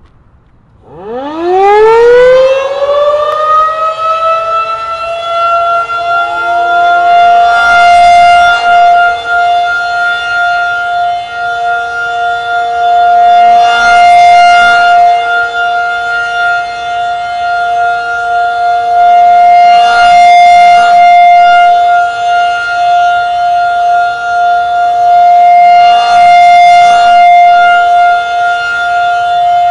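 Federal Signal 2001-SRN single-tone electromechanical siren sounding a test. It winds up about a second in, its pitch rising quickly and settling into one steady high wail, and it swells louder about every six seconds as the slowly rotating horn sweeps past.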